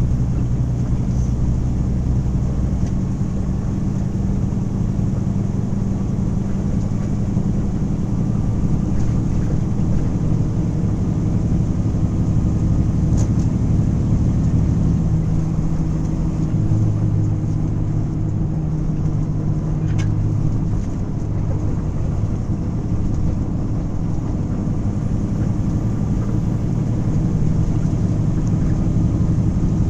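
Steady engine drone and road noise heard from inside a moving vehicle's cab at highway speed. The engine note shifts a little about halfway through.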